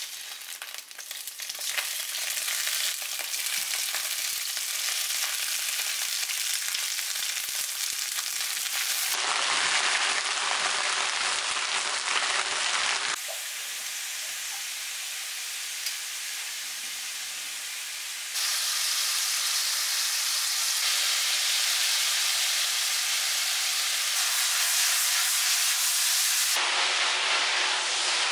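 Makanek sausages sizzling in hot olive oil in a stainless steel frying pan: a dense frying hiss that starts as the sausages go into the oil, with a few sharp clicks in the first seconds. The level drops noticeably about halfway through and rises again a few seconds later.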